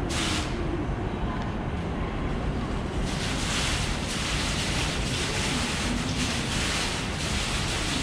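Water curtain of a Space Printer water clock: falling droplets patter and spatter into the basin over a low rumble. A few short spurts come at first, then from about three seconds in a steady, fuller hiss as the nozzles release the rows of drops that draw pictures in the air.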